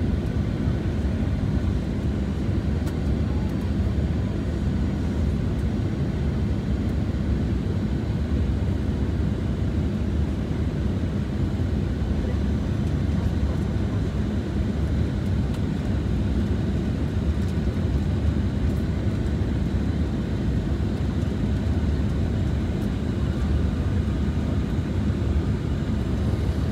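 Airliner cabin noise on final approach for landing: a steady low roar of engines and airflow heard from a window seat.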